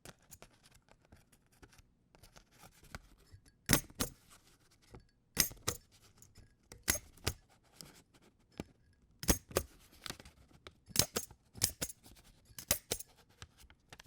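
Single hole punch punching through paper about seven times, each punch a pair of sharp metal clicks as the lever goes down and springs back, with faint paper handling between.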